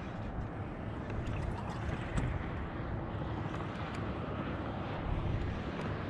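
Steady wind rumble on the camera microphone, with a few faint ticks.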